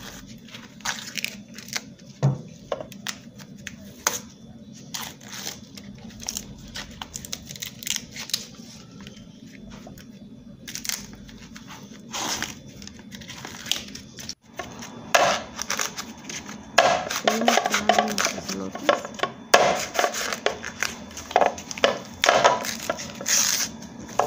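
Fresh corn husks being torn and stripped from ears of corn by hand: repeated papery tearing and rustling, busier and louder in the second half.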